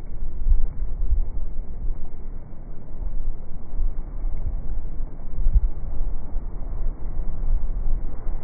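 Wind-driven sea waves crashing against a wall, a continuous low noise with heavy wind buffeting the microphone and stronger surges about half a second in and again near five and a half seconds.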